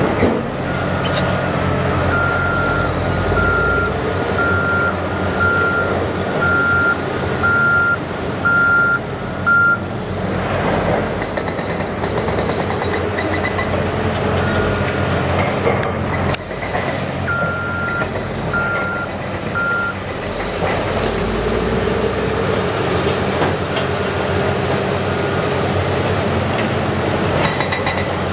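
Diesel engines of Caterpillar excavators and a wheel loader running steadily under load, with a back-up alarm beeping in an even series through the first ten seconds or so and again a few times in the middle.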